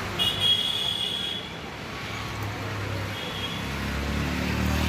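A motor vehicle engine running with a steady low hum that grows louder near the end, with a brief high-pitched tone in about the first second.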